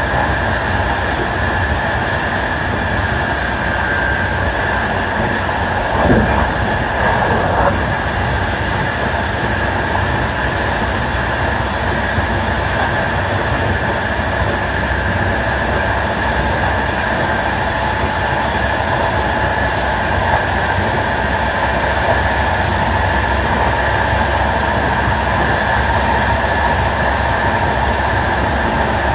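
Running noise of an intercity passenger train at speed, heard from its last coach: a steady rumble of wheels on the rails with a constant high tone over it. About six seconds in, a brief louder burst of noise sweeps down in pitch.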